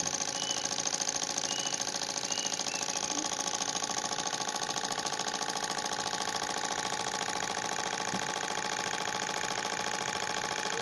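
Small model Stirling engine running steadily, a fast even mechanical clatter.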